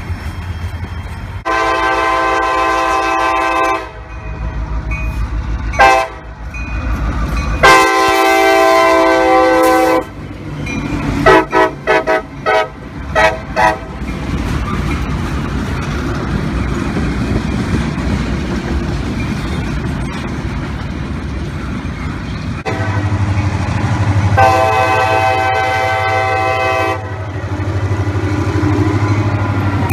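Diesel freight locomotive air horns sounding several chord-toned blasts: a long blast, a short one, another long one, then a quick run of short toots, and a long blast again near the end. Under them runs the steady low rumble of the diesel locomotives and the freight cars rolling by.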